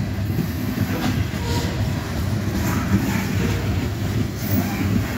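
Loaded coal cars of a freight train rolling past close by: a steady heavy rumble of steel wheels on rail, broken by recurring clacks as the wheel sets pass over the rail.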